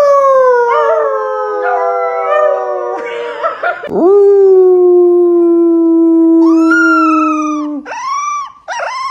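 Dog howling in answer to being asked to say "mama": two long drawn-out howls, the second held steady for about four seconds, then a few short rising-and-falling yowls near the end.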